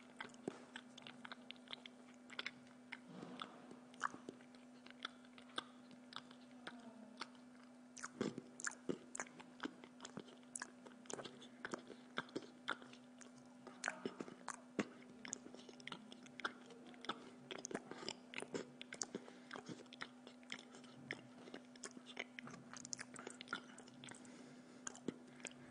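A person biting and chewing a toasted bread sandwich close to the microphone: irregular mouth clicks, smacks and crunches of the crust, several a second. A faint steady hum runs underneath.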